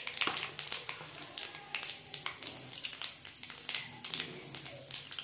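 Panch phoron seeds crackling and popping in hot oil in a kadhai, an irregular run of sharp little pops, several a second.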